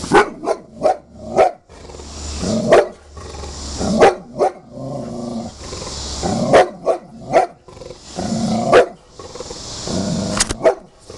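An American bulldog barks repeatedly in clusters of one to three loud barks, with low growling in the gaps between them.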